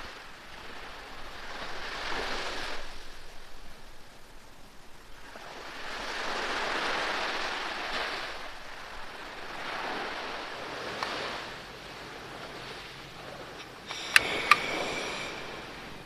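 Sea waves washing onto a sandy beach, surging and fading every few seconds. Near the end, two sharp metallic clicks with a brief ring.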